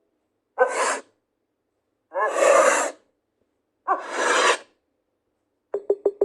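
Three sneezes, one after another with short silences between, the second the longest; near the end a few quick clicks begin.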